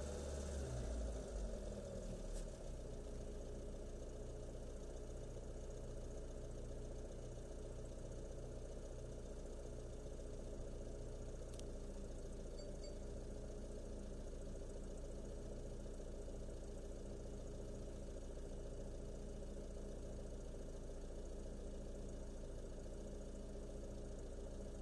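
BYD F3 engine idling steadily. In the first couple of seconds the electric radiator cooling fan cuts out, its rush of air fading with a falling whine as it spins down. A single faint click comes about halfway through.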